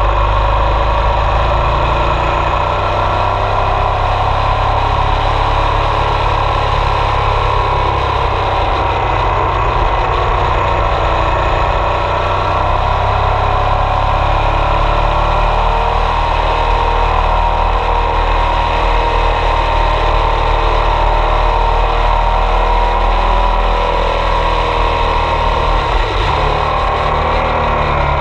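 Ducati Multistrada 1200 S DVT's Testastretta V-twin engine running under way, heard from on board over steady wind and road noise. Its pitch rises and falls gently through the bends and drops near the end as the bike slows.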